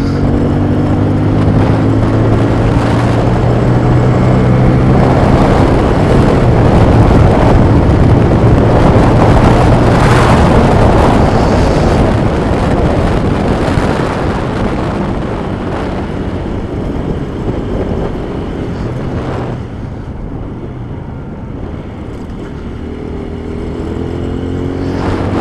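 Motorcycle engine running under way, still on its original exhaust, with heavy wind rush on the helmet-mounted microphone. The engine pitch climbs at the start and again near the end as the bike accelerates, and the rushing noise is loudest in the middle.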